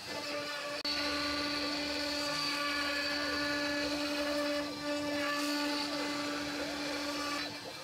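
CNC router spindle running with a steady, high-pitched whine while its bit mills a circular pocket into a pine board. The sound cuts out for an instant just under a second in and dips briefly near the middle.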